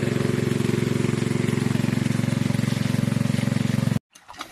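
Small engine running steadily with a fast, even chugging, cutting off suddenly near the end.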